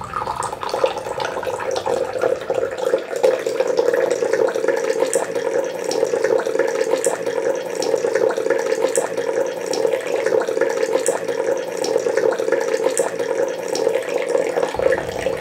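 Coffee bubbling and running in a large aluminium kettle fitted with a cloth filter, a steady watery sound with faint ticks every couple of seconds.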